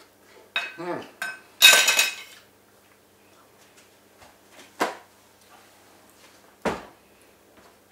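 A metal fork clattering down onto a ceramic dinner plate, ringing briefly, about a second and a half in, after a couple of smaller clinks. Two single sharp knocks follow later, near 5 and 7 seconds.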